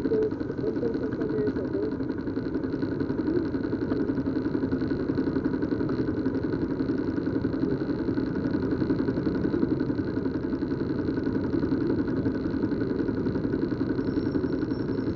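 Vehicle engines idling in stopped traffic: a steady running sound with a fast, even flutter.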